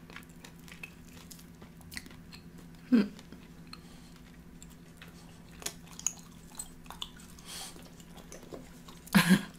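Close-miked chewing of a bite of chicken wing, mouth closed: soft wet chewing with small crunches and clicks, broken by two short louder sounds about three seconds in and near the end.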